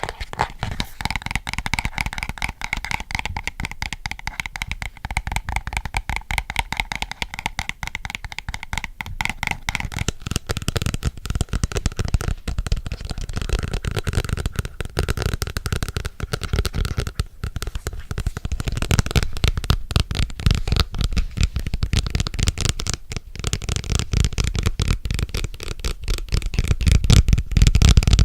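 Fast fingernail tapping on a hard object close to the microphone: a dense, rapid run of clicks with a faint ringing note from the object, which changes pitch about ten seconds in.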